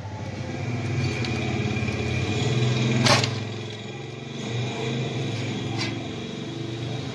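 A vehicle engine running, growing louder to a peak about three seconds in and then easing off. Sharp clicks from pliers working the electrical wire come at the peak and again a few seconds later.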